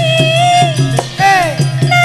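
Javanese karawitan (gamelan) music in Sragenan style: a singer holding and bending long notes over the ensemble, with a steady drum beat.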